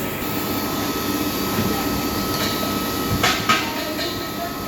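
Steady mechanical running noise with a thin constant whine, and two sharp metallic knocks about three seconds in, the second the louder.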